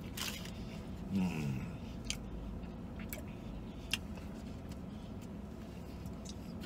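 A person biting into and chewing a fried chicken sandwich, with a few sharp clicks and a short falling hum from the voice about a second in, over a steady low background hum.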